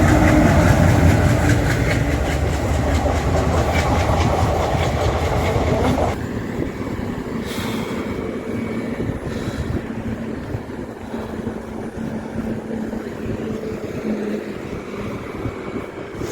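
A heavy vehicle rumbling past close by with rapid rattling clicks, dropping away sharply about six seconds in to a quieter steady road and wind noise.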